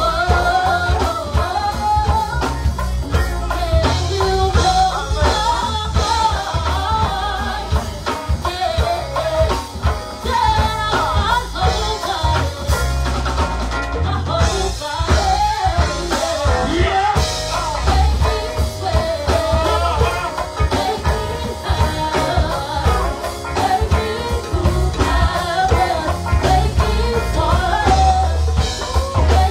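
Live go-go band playing: singers over a driving drum kit and conga beat, with a heavy steady bass.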